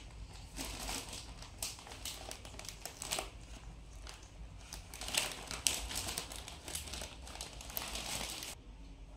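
Bouquet wrapping crinkling in irregular bursts as a small child pulls and handles it.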